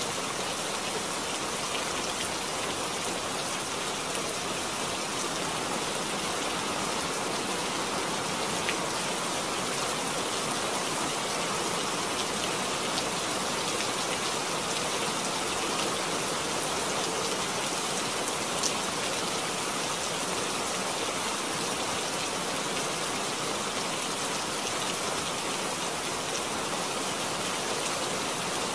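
Steady rain falling, an even hiss with a few louder single drop impacts.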